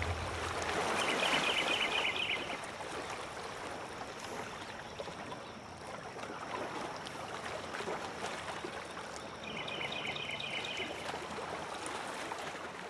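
Steady wash of lake water, with a small bird's rapid chittering call twice: about a second in and again near the end.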